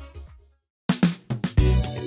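Background music fading out, then a short gap of silence, then a new music track starting with drums and bass just under a second in.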